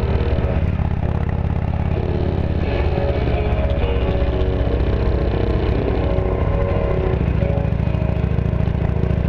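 Music playing through 2-inch motorcycle-mounted speakers while riding, over the steady running of the motorcycle's engine and road noise.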